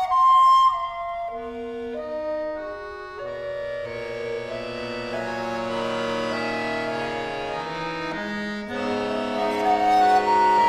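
A recorder and accordion duo playing a contemporary classical piece. A high recorder note opens it, then the accordion builds layered sustained chords that thicken over several seconds. They break off briefly and come back louder near the end.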